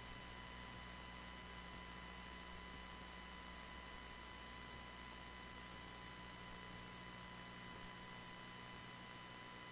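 Faint, steady electrical hum with a thin high whine over a low hiss, unchanging throughout.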